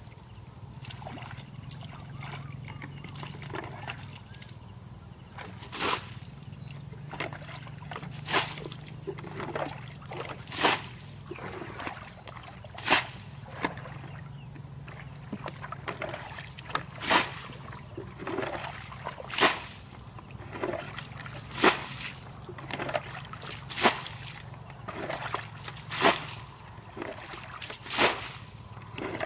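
Muddy water being bailed with a plastic bucket: quieter sloshing at first, then a splash of thrown water about every two seconds, with scooping and sloshing in between.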